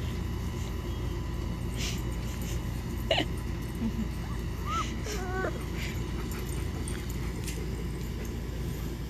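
Young Great Bernese puppies, about four weeks old, whimpering: a few short, high, wavering squeaks about three to five and a half seconds in, over steady low background noise.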